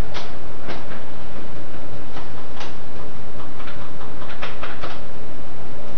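Plastic bag crinkling in irregular crackles as raw cacao powder is shaken out of it into a blender jar, over a steady low hum.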